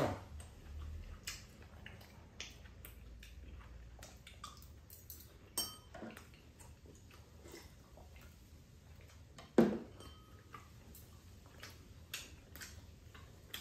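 Quiet eating at a table: chewing, with scattered light clicks of metal chopsticks against bowls and dishes, and one louder short sound about ten seconds in.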